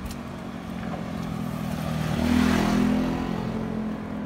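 A motor vehicle passing by: its engine sound and road noise swell to their loudest a little past halfway, then fade away.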